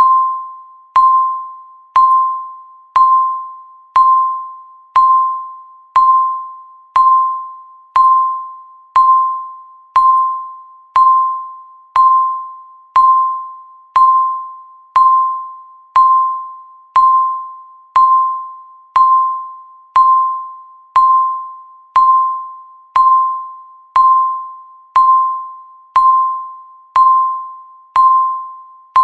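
Countdown timer beep: one short electronic tone, about 1 kHz, sounding exactly once a second and dying away quickly after each strike, marking each second as the timer counts down.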